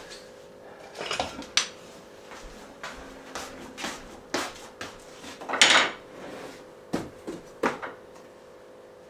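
Kitchen utensils being handled: a scatter of short clinks and knocks from cutlery, a drawer and dishes, with the loudest clatter a little past halfway through. A faint steady hum runs underneath.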